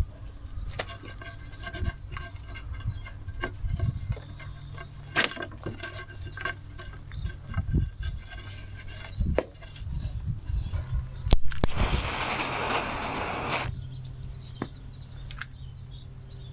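Hands-on work on a wooden pallet rack: scattered knocks, clicks and rattles of wood and hardware over a steady low hum, with a loud rushing hiss lasting about two seconds near the twelve-second mark.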